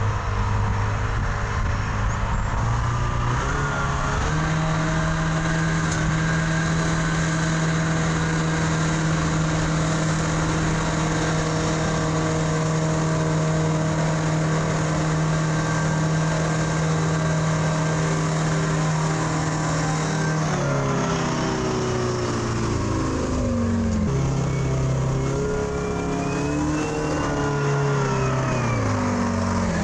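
Pettibone PM245 wheel loader's engine running as the loader is driven on a test drive after its transmission was topped up with fluid. The engine pitch steps up over the first few seconds and holds steady for a long stretch, then falls and rises several times over the last third as the throttle changes.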